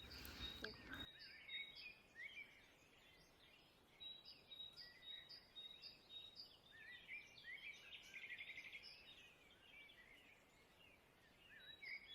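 Faint songbirds singing in woodland: a short high note repeated over and over, quick upward chirps, and a brief trill about eight seconds in. A little rustling in the first second.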